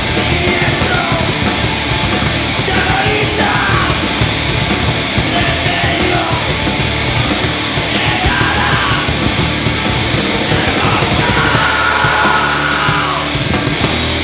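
Live post-grunge rock band playing: electric guitar, bass guitar and a drum kit at full volume, with shouted vocals over the top.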